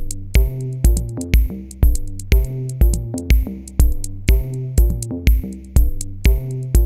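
Background music with an electronic beat: a drum-machine kick about twice a second under synthesizer bass and chords.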